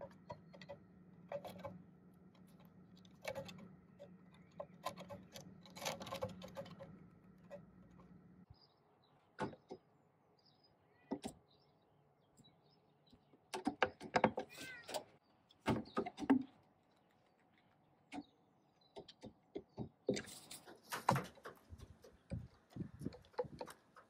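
Hooded crows' feet tapping and scratching on wooden decking as they walk, in scattered clicks with dense clusters of taps about two-thirds through and again near the end.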